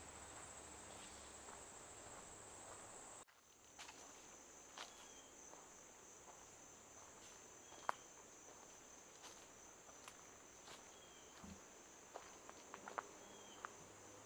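Faint, steady high-pitched drone of crickets, with scattered soft footsteps on a woodland trail and a few short, high chirps.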